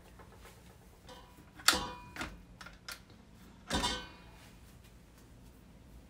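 Two sharp, ringing clinks of kitchen bowls or utensils being handled, about two seconds apart, with a few faint clicks between.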